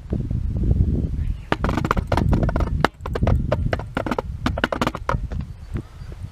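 Low, uneven rumble of wind and handling on the microphone. From about a second and a half in until about five seconds, a run of sharp, irregular clicks and crunches comes through it.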